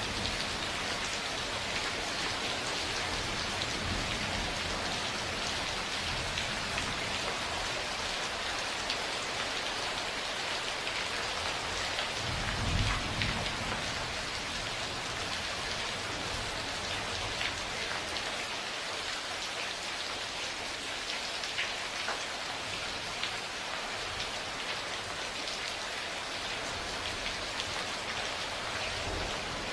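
Steady rain falling, a continuous hiss with scattered drop taps, and a short low rumble of thunder about halfway through.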